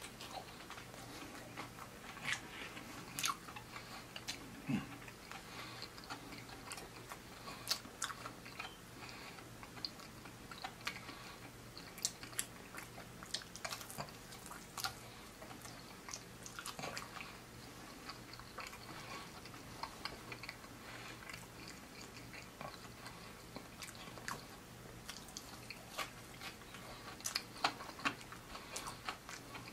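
A person biting into and chewing battered fried seafood, with many short, sharp crunchy clicks scattered throughout.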